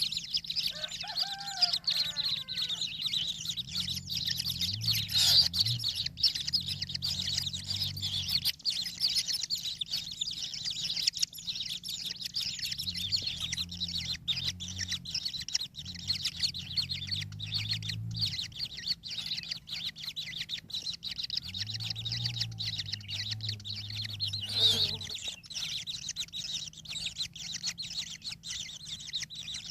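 Birds: a steady, dense high-pitched chirring chorus, with a few short falling calls about a second in.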